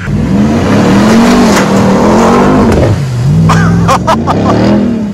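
Ram TRX's supercharged 6.2-litre Hemi V8 revving hard as the truck churns through a mud pit. The engine pitch rises and falls, drops briefly about three seconds in, then climbs again.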